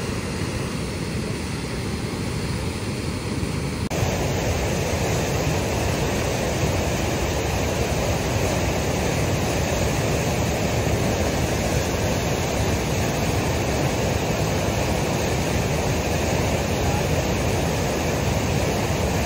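Steady roar of whitewater rushing over and below a river dam, growing a little louder about four seconds in.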